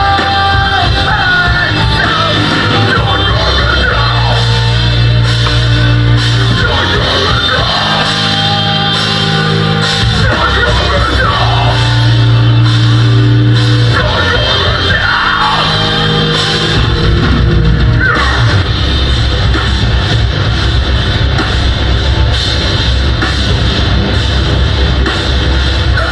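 Metalcore band playing live: heavy distorted guitars over a drum kit, with sustained low bass notes that change every couple of seconds.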